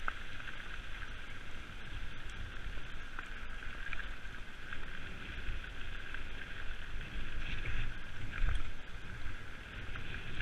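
Mountain bike rolling fast over a gravel track, tyre noise and a steady rumble with wind buffeting the microphone; a few louder jolts from bumps in the track about three-quarters of the way through.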